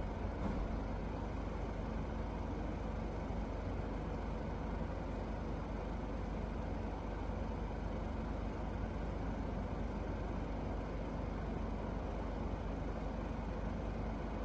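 Steady, even background noise with a low hum, unchanging, with no distinct events.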